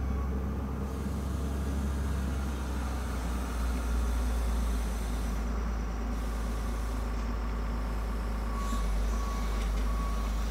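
Wheel loader's diesel engine running steadily, with its reversing alarm beeping near the start and again near the end.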